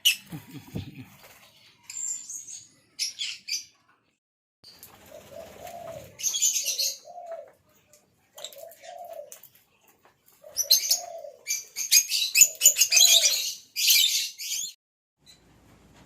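Tame African lovebirds chattering in shrill, rapid bursts, busiest in a long run near the end. About five short, low coo-like notes fall in between.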